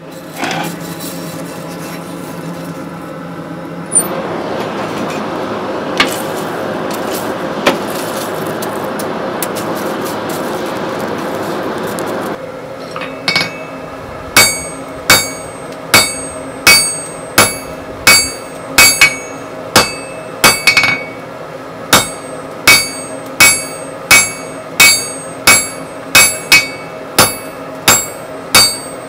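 Hand hammer striking a red-hot steel bar on an anvil, a steady run of ringing blows at about one and a half per second with a short pause near the middle. It is preceded for about the first dozen seconds by a steady rushing noise with a few scattered clicks.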